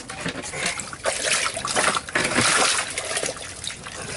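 Water splashing and dribbling in an ice-fishing hole as a northern pike is pulled up through it by hand, loudest about two seconds in.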